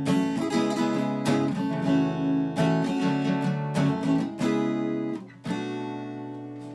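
Acoustic guitar strummed in a steady rhythm of chords, with no singing. About five and a half seconds in, one chord is struck and left to ring, fading slowly.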